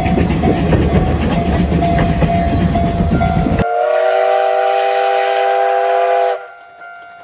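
Train running close by, a loud rumble with rail clatter. About three and a half seconds in, this abruptly gives way to the C12 66 steam locomotive's whistle: one long blast of several tones together, lasting about two and a half seconds, which stops suddenly.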